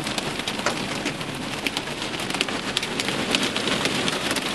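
Heavy rain and hail pelting a vehicle's roof and windshield, heard from inside the cabin: a dense, steady rush with many sharp ticks of stones striking.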